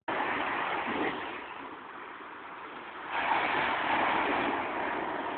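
Rushing noise of waves, easing off after about a second and swelling louder again about three seconds in.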